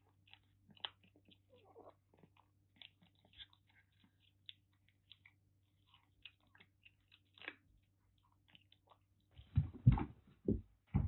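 Kittens chewing dry food, small crunching clicks. Louder knocks and rustling near the end.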